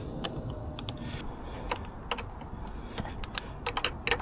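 Scattered light clicks and taps at an uneven pace, from hands handling parts, with a cluster of quicker clicks near the end, over a low steady hum.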